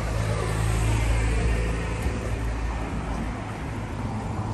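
A motor vehicle passing by in street traffic, growing loudest about a second in and then fading as its sound falls in pitch, over a steady low traffic rumble.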